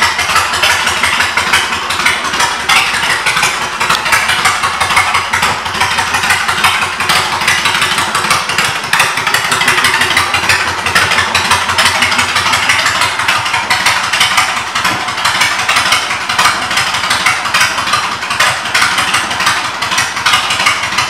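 2007 Honda Shadow Spirit 750's V-twin engine idling steadily through aftermarket exhaust pipes.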